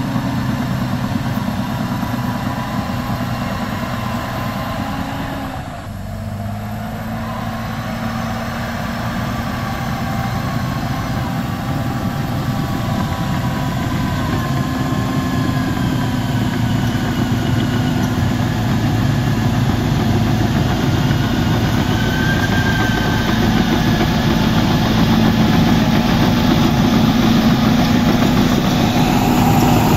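Caterpillar D7R crawler dozer's diesel engine running steadily. The engine note dips briefly about six seconds in, then the machine grows gradually louder as it comes closer.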